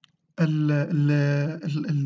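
A voice holding a long, level drawn-out vowel sound, a spoken hesitation between phrases, with a short break near the end.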